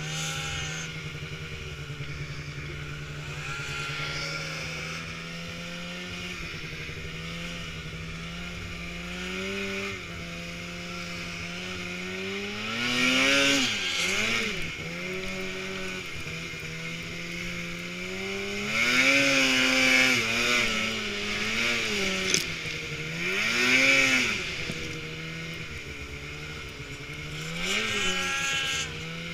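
Polaris RMK Assault snowmobile's two-stroke engine under the rider. It runs at a steady speed for about ten seconds, then revs up and falls back in several surges.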